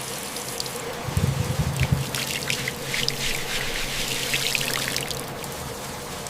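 Water trickling and dripping over a steady hiss, with many small drip ticks and a few soft low thuds between one and two seconds in.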